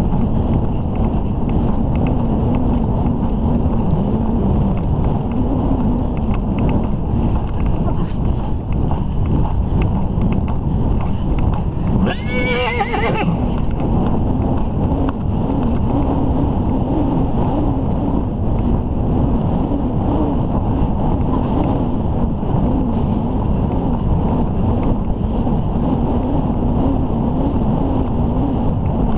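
A horse whinnies once, about twelve seconds in, for about a second, over a steady rumble of wind on the microphone from riding.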